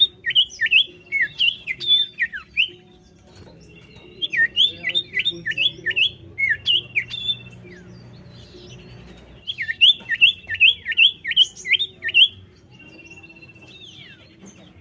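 Common iora (cipoh) singing: three phrases of rapid looping whistled notes, each opened by a long steady whistle, a couple of seconds apart.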